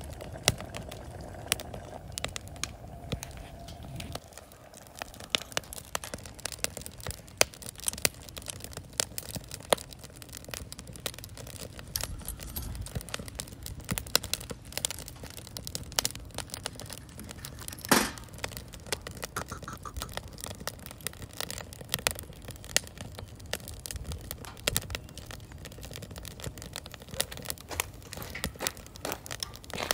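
Wood fire crackling: a split-log Swedish torch burning, with frequent sharp pops and one louder pop about eighteen seconds in.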